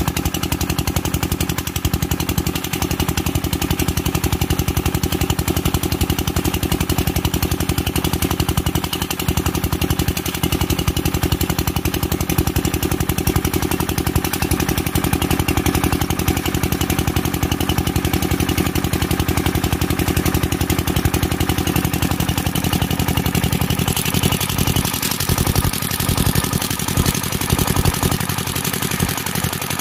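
Kirloskar diesel engine running steadily with a fast, even firing pulse. After about twenty-two seconds the low part of the sound thins out and a hiss comes up over it.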